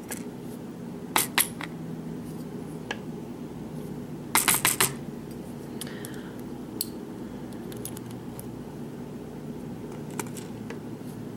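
Small metal clicks and taps as the pins and parts of a pin-tumbler lock are handled during disassembly: two clicks about a second in, a quick run of about four around the middle, and a few single ticks later.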